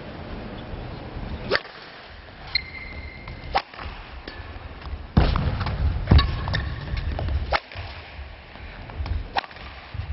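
Table tennis rally: a series of sharp, irregularly spaced clicks of the celluloid ball striking paddles and the table. Louder background noise swells up about halfway through.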